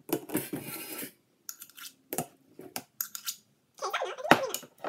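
A metal spoon scraping and clinking against a glass measuring cup and the shortening can while scooping thick vegetable shortening. It opens with a second of scraping, then scattered clicks, and a louder patch of squeaky scraping with one sharp clink near the end.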